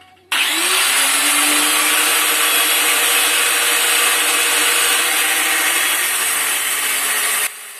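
Electric angle grinder starting up about a third of a second in, its whine rising as it comes up to speed, then cutting into a piece of iron clamped in a vise with a steady, loud grinding hiss. It stops abruptly near the end.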